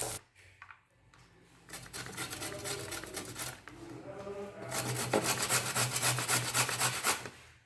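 A kitchen utensil scraping against cookware in quick repeated strokes, in two runs, the second louder.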